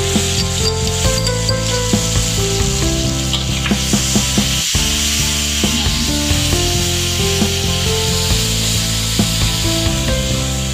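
Sliced onions and garlic sizzling in a hot metal wok with a red sauce paste, a metal spatula scraping and clicking against the pan as it stirs. Background music plays throughout.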